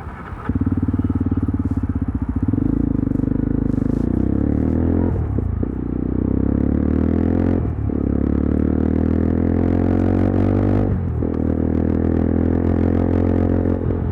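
Yezdi Adventure motorcycle's single-cylinder engine accelerating on the road. The pitch climbs steadily, broken by three brief dips about five, seven and a half and eleven seconds in, as the rider shifts up a gear.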